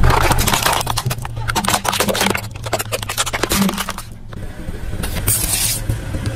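Hard plastic toy crane truck cracking and snapping under a car tyre, many sharp snaps in quick succession for about four seconds, over the low steady running of the car's engine. After a short break, a brief hissing burst near the end.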